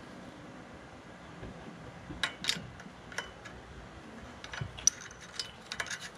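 Light metal clicks and taps as a stamped-steel valve rocker arm is handled and seated onto its stud over the valve spring of a small engine's cylinder head. The clicks are scattered, a couple about two seconds in and a quicker run of them near the end.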